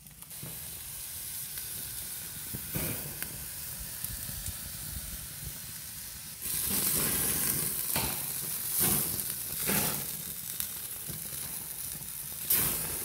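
Beef burger patty sizzling on a gas grill's grates, with a few sharp pops. The sizzle gets louder about six and a half seconds in.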